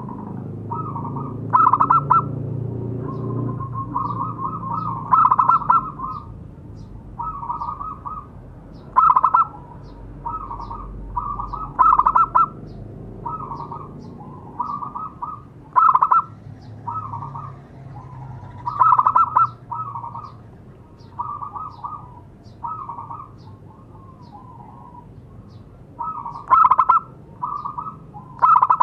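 Zebra dove (perkutut) cooing: a long run of short, rhythmic coo phrases about a second apart, some notes much louder than the rest.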